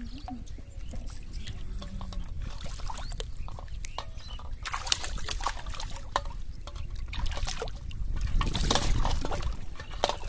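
Shallow pond water splashing and sloshing as a hooked catfish thrashes at the surface and a man wades waist-deep. The splashing comes in spells, loudest around five seconds in and again near nine seconds.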